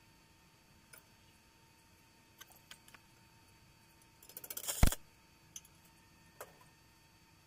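Small metal clicks and taps as pliers and a thin steel rod work a small part on a welded steel model, with a quick rattle of clicks about four seconds in that ends in one sharp, loud knock.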